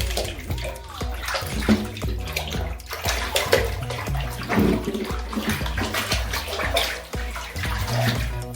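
Water splashing and sloshing in a small bathtub as a child moves in it, over background music with a steady beat.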